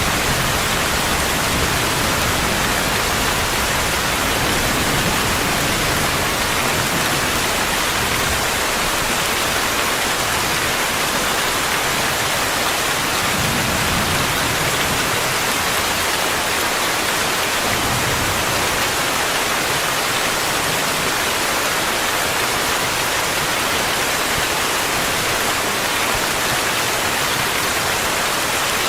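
Steady heavy rain: a dense, even hiss that holds at one level throughout.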